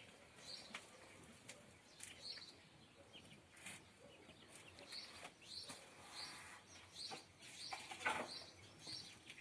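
Day-old poultry chicks peeping faintly, with short high peeps repeating every half second or so, and a couple of soft knocks.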